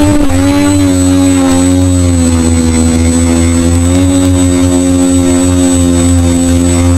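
Electric motors and propellers of a small FPV model aircraft running at a near-steady pitch, heard from its onboard camera, with wind buffeting the microphone.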